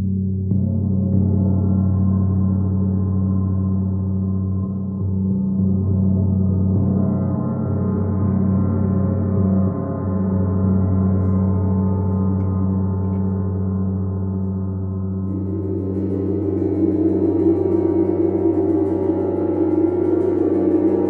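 Large hanging gongs sounding a sustained, shimmering drone with a deep hum, set going by a felt-mallet stroke at the start and kept ringing with the mallet. About fifteen seconds in, a second gong played with a thin beater joins and adds a brighter, higher ring.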